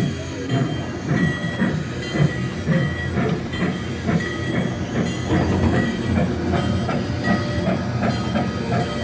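Train rolling along the track: a steady rumble with wheels clicking over rail joints throughout.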